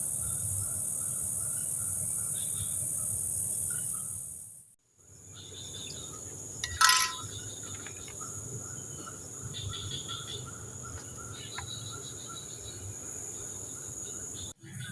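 Dusk forest chorus: a steady high-pitched drone of insects, with frogs and birds calling faintly and repeatedly underneath. The drone breaks off for a moment about a third of the way in and comes back quieter. About halfway through, one short loud chirp stands out.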